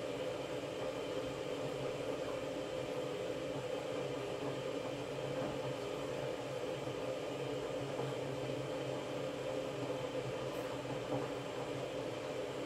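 Washing machine running with a steady, even hum and whir that does not change.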